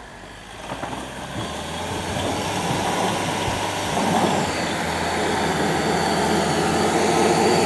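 A 4x4 SUV's engine running under load as it drives through snow, growing steadily louder as it draws near.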